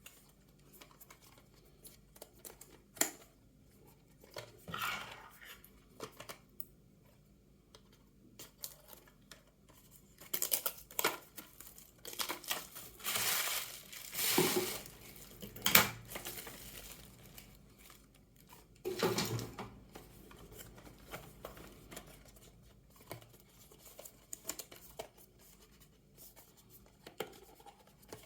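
Packaging and small plastic parts being handled, with scattered clicks and taps and several bursts of crinkling or tearing packaging in the middle.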